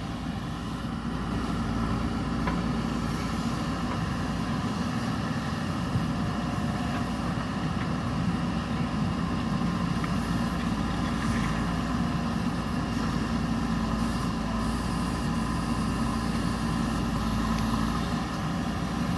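Diesel engine of a JCB backhoe loader running steadily at an even pitch.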